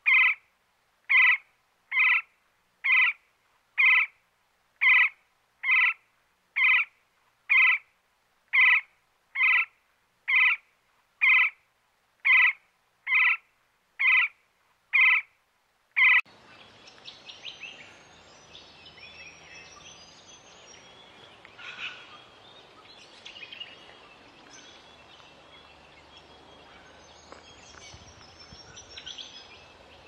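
A woodpecker's short call repeated evenly about once a second. After about 16 s the calls stop, and quieter outdoor background with scattered bird chirps takes over.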